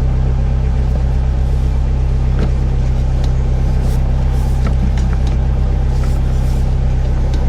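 An engine running steadily, a constant low hum with a few faint ticks over it.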